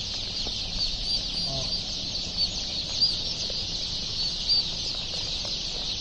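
Dozens of turkey poults crowded together, peeping continuously in a dense chorus of overlapping high, short cheeps.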